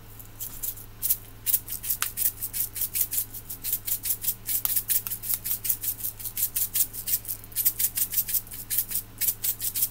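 Container of rainbow sprinkles shaken over a cake, the sprinkles rattling in quick rhythmic shakes, about four or five a second, starting about half a second in. The shaking is repeated because the sprinkles come out a little at a time.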